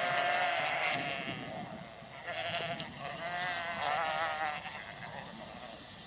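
A mob of ewes and lambs bleating as the flock runs through into a new break. Many calls overlap, coming in three waves over the first four and a half seconds, then dying down.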